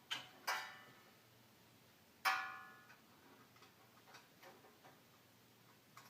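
Three sharp metallic clinks with a short ring, the third and loudest about two seconds in, followed by a few faint light ticks. This is steel wheel hardware, the cotter pin and axle rod, knocking on the generator's axle bracket as the pin is worked into the axle hole.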